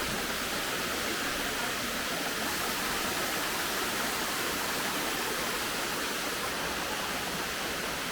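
Steady, even rushing noise, like running water, holding at one level with no separate events.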